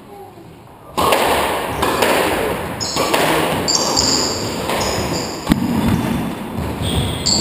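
Squash rally on a wooden court: shoes squeal sharply on the floor several times as the players move, with a sharp ball strike about five and a half seconds in. Underneath is a loud, steady rush of noise that starts suddenly about a second in.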